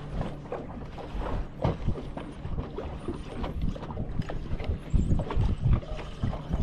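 Small waves slapping against a boat's hull in irregular knocks, over a low steady rumble.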